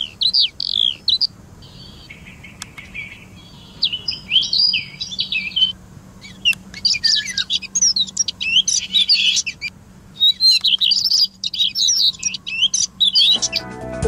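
Bird calls and songs played back as a bird caller's sound samples: several different kinds follow one another, from quick falling chirps to a lower buzzy call to dense bouts of high chirping and a fast run of repeated notes, with short pauses between them. Music comes in near the end.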